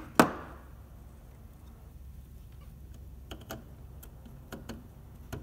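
A single sharp clack with a short ring just after the start, then a few faint clicks of hands working a small circuit board loose from a metal gauge panel's mounting studs, over a low steady hum.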